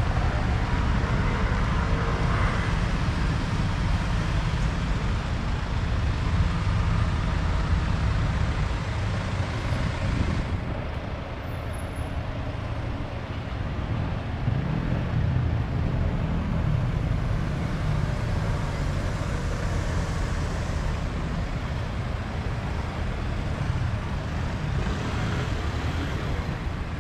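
Street traffic noise: motor vehicles running nearby, a steady low rumble.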